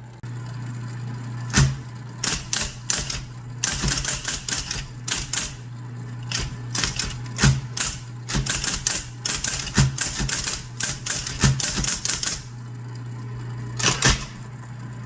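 IBM Model D electric typewriter being typed on: a steady motor hum under runs of sharp key strikes, with a pause and then two last strikes near the end.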